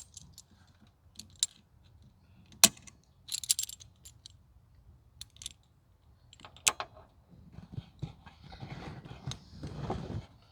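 Metal hand tools and hose clamps clicking and clinking during work on a car's radiator hose. A sharp snap comes about two and a half seconds in and a jingling clatter follows, with rubbing and scraping near the end.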